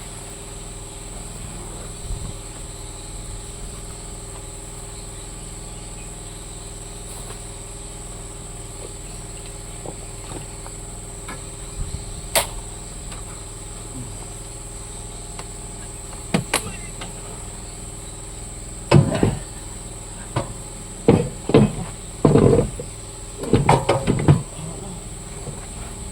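Sharp metallic knocks and clanks, a few scattered at first, then several quick clusters in the last third, from engine-mounting work. They sound over a steady high-pitched whine and low hum.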